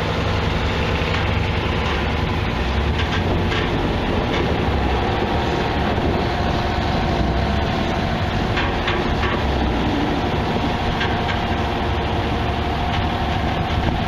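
The Detroit Diesel engine of a big four-wheel-drive tractor running steadily as it tows a long string of steel plows, with a faint clatter from the plow frames rolling over pavement.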